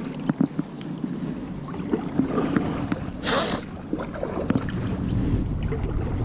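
A kayak being paddled and manoeuvred: paddle strokes swishing in the water and small knocks against the hull, with one louder swish about three seconds in. Wind rumbles on the microphone throughout.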